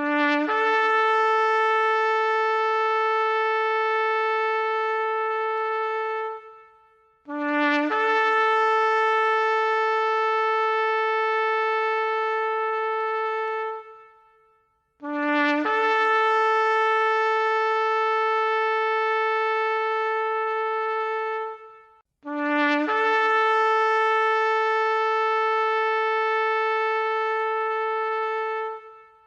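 Shofar sounding four long blasts with short pauses between them. Each blast opens on a brief low note, leaps up to a higher tone, and holds it for about six seconds before fading.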